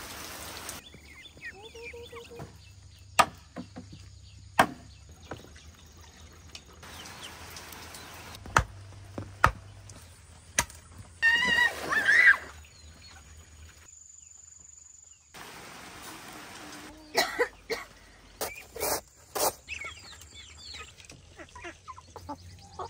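Rain falling, heard in separate stretches, with several sharp knocks and taps standing out above it. About eleven seconds in comes a short burst of high, chirping animal calls, the loudest moment.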